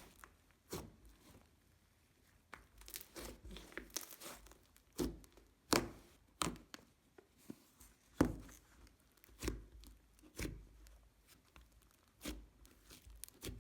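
Slime being squished, stretched and poked by hand, giving a string of irregular sharp crackling pops and snaps, the loudest about eight seconds in.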